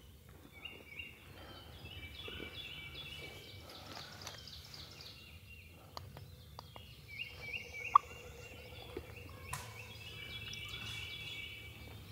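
Wild turkey gobbler gobbling twice, each a rapid rattling run of notes lasting a few seconds. A single sharp click is heard about eight seconds in.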